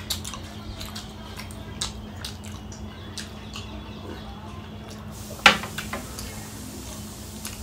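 Small wet mouth clicks and lip smacks from eating and drinking close to the microphone, over a steady low hum. One louder, sharp sound comes about five and a half seconds in.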